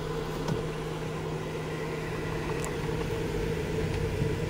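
Van engine running steadily with road noise while driving slowly, heard from inside the cab: an even hum with a couple of faint ticks.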